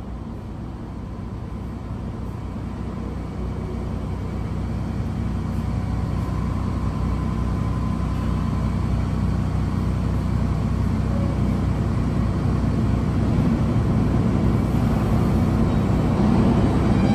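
New York City subway train rumbling along the tracks, growing steadily louder as it approaches.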